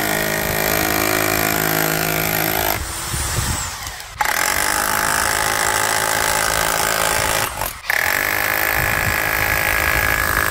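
GLORITY RH20A SDS-Plus rotary hammer drill running under load, first boring into a wooden log, then into a masonry block. It runs in three spells: it sags and stops about three to four seconds in, restarts, pauses for a moment near eight seconds, and runs again until it cuts off at the end.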